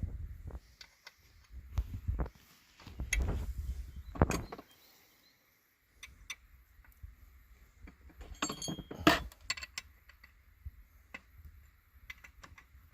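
Irregular metallic clinks and knocks, the sharpest about four seconds in and again near nine seconds, over low rumbling bumps in the first half.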